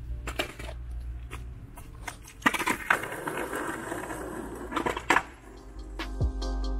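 Skateboard put down on asphalt with a sharp clack, then its wheels rolling over rough asphalt for a couple of seconds, with a few more board clacks near the end of the ride. Light footsteps come before it, and music starts near the end.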